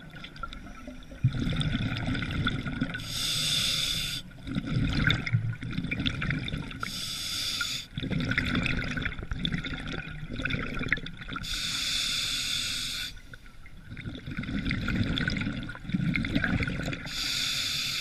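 Scuba diver breathing through a regulator underwater. Each inhalation is a short hiss, about four in all, and each is followed by a longer gurgling rumble of exhaled bubbles.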